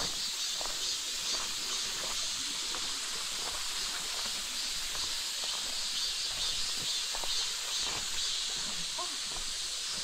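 A steady high hiss of outdoor forest ambience, with faint footsteps on a dirt-and-gravel path, roughly one step every second.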